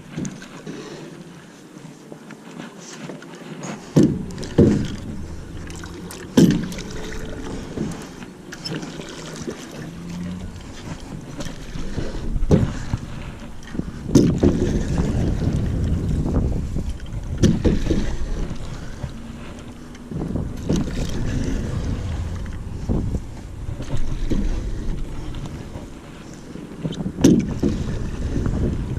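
Wind buffeting the microphone in gusts on a small boat, with several sharp knocks scattered through.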